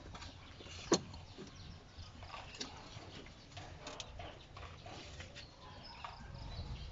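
Small plastic clicks and rattles of a hand working by feel behind a car's headlight to free a bulb socket, with one sharp click about a second in.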